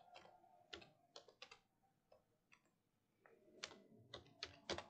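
Faint computer keyboard typing: scattered single keystrokes, then a quick run of clicks near the end.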